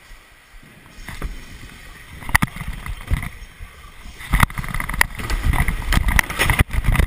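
Stunt scooter wheels rolling over wooden skatepark ramps, heard close on an onboard camera with wind on the microphone as a steady rumble. Sharp knocks and clatter from the deck and wheels striking the ramp come every second or so, thickening into a run of loud clattering over the last two seconds.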